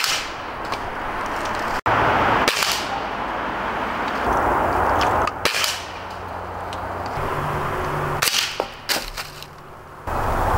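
Hatsan Striker .25-calibre break-barrel spring-piston air rifle firing pellets: several sharp shots a few seconds apart.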